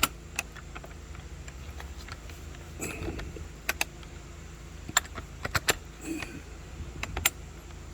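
Metal gate and its latch being worked open with difficulty: a string of sharp, irregular clicks and clanks.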